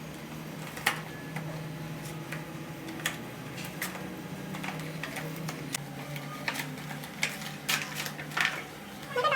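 Toy packaging being handled and opened: irregular sharp clicks and crackles over a steady low hum.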